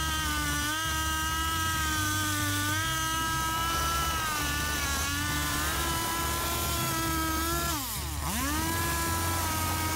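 Petrol chainsaw with a log-smoothing attachment on its bar nose, running at high revs as it works the surface of a peeled log. About eight seconds in, the engine speed drops sharply and then climbs back up.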